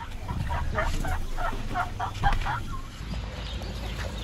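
Asian elephants chirping during a greeting: a quick series of short squeaky calls, about four a second, lasting a couple of seconds and then stopping.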